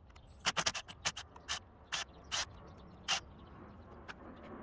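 A hand ratchet clicking as it loosens the pump-head bolts: a quick run of clicks about half a second in, then single clicks about every half second.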